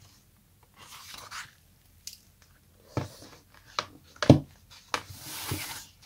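Pages of a hardcover dot-grid notebook being turned and pressed flat by hand: paper swishing, a few soft thumps and clicks with the loudest about four seconds in, then a hand rubbing across the paper near the end.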